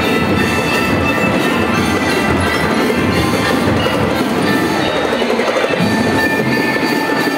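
Drum and lyre corps playing: marching drums beating under bell lyres ringing out a melody, loud and steady.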